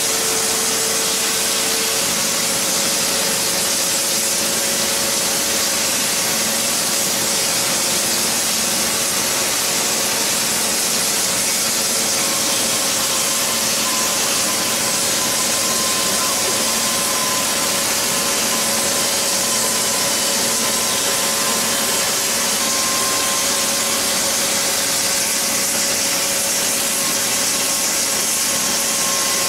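Gas heating burners hissing steadily on a hot-forming machine as it spins and shapes a red-hot steel workpiece, with a constant machine hum of a few steady tones underneath.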